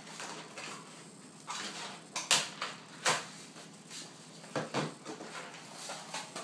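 Hard plastic clicks and knocks as a laptop battery is released and pulled out of its bay, then set down and the laptop turned over on a worktop. There are several sharp knocks, the loudest about two and a half and three seconds in.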